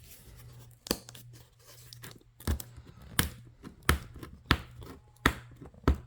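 Hands picking and tearing at a taped cardboard shipping box that won't open by hand, giving a sharp rip or snap every second or less from about a second in, over a low steady hum.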